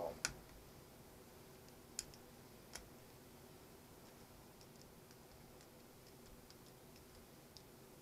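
A few sharp metal clicks and fainter ticks from a screwdriver and locking pliers on a sump pump motor's armature shaft as a screw is being turned out, over near silence. The three sharpest clicks come in the first three seconds.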